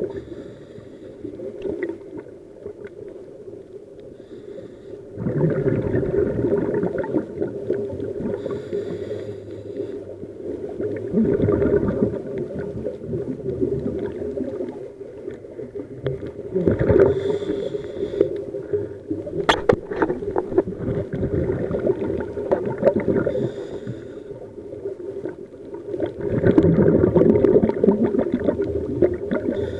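Scuba diver breathing through a regulator underwater: slow breaths several seconds apart, each exhale a loud burbling rush of bubbles, with a short hiss from the regulator between them. The longest, loudest exhale comes near the end.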